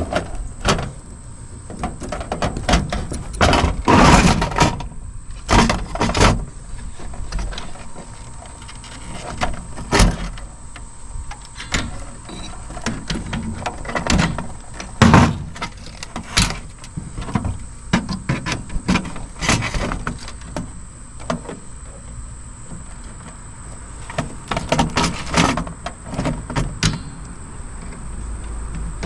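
Irregular clicks, knocks and rattles of tools and metal parts being handled while a cassette deck's chassis is taken apart.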